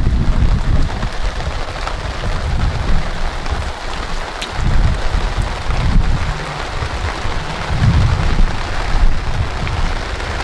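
Heavy rain coming down steadily, with a low uneven rumble underneath that swells and fades.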